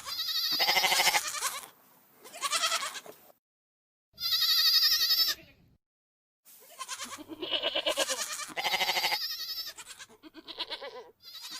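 Goat bleating: a series of about six calls with short pauses between them, each with a quavering, wavering pitch.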